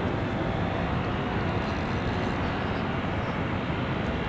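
Steady low rumble of distant engine noise, with a faint, even whine over it.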